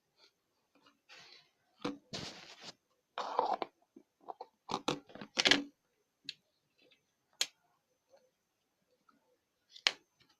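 Slime being squeezed and pressed by hand: irregular wet, crunchy squelches and crackles in short bursts with quiet gaps, the loudest a few seconds in.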